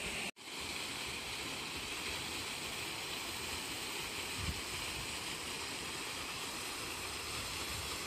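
Steady rushing of a creek and small waterfall, an even hiss of falling water. The sound cuts out for an instant near the start.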